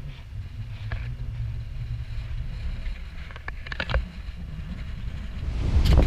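Steady low rumble of wind buffeting the camera microphone, blended with the distant roar of Dettifoss waterfall. There are a few faint clicks about three and a half to four seconds in, and the wind noise swells louder near the end.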